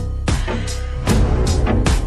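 Background music with a heavy bass and a steady drum beat, about two and a half hits a second.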